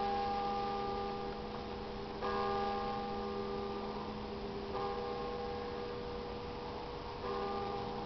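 A bell struck three times at an even pace, about one stroke every two and a half seconds, each stroke ringing on until the next. These strokes are part of a count of twelve.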